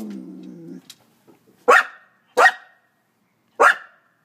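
A Norwegian Elkhound's drawn-out whine that stops under a second in, then three sharp, loud barks in an excited greeting as its owner arrives.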